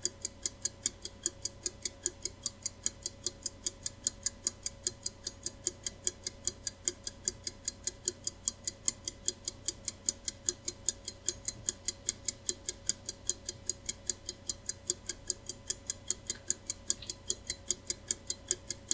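Steady, even ticking, about four or five sharp ticks a second, like a clockwork mechanism, over a faint steady hum.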